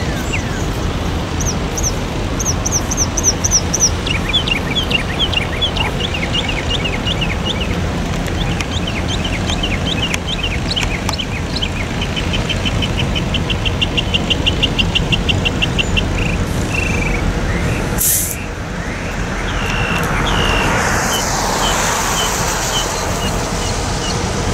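Steady low rumble of a Norfolk Southern diesel freight train passing, with songbirds chirping over it and a fast trill partway through. About eighteen seconds in there is a sharp click, and a rushing hiss follows.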